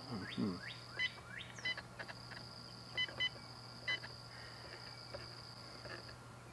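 Humminbird Helix 7 fish finder giving short electronic key beeps, about five of them spread through the few seconds, as its buttons are pressed to move through the menu.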